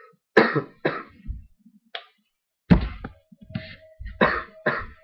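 A person coughing repeatedly in a fit of short, dry coughs: three quick ones, a pause of about a second, then another run of about five. It is the dry, hard-to-stop cough of a sore, dry throat while getting over an illness.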